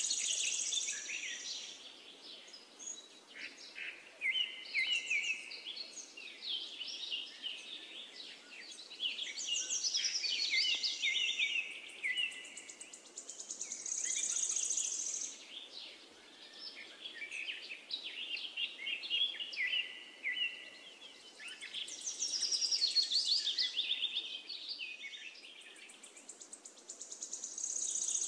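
Birds singing: many high chirps and trills overlapping, swelling and fading every few seconds.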